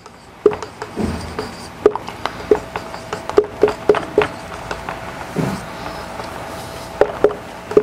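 Marker pen writing on a whiteboard: irregular short taps and squeaks, several a second, as the letters are stroked out.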